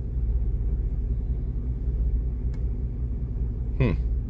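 A 1998 Chevy C1500 pickup's engine running steadily, a low, evenly pulsing rumble, while it is being diagnosed for misfires. A short sound falling in pitch comes near the end.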